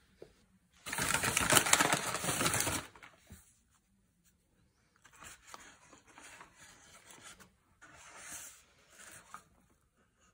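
Crinkling of a plastic treat bag for about two seconds, then a dog nibbling and crunching a hard cookie held out in a hand, in short, quieter bursts.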